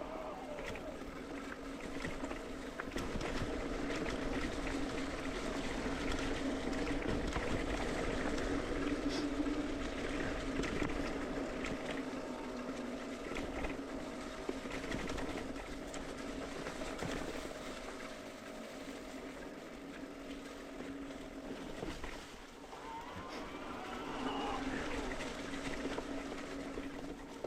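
Mountain bike rolling along a dirt singletrack: a steady tyre hum with scattered rattles and knocks, and wind on the microphone.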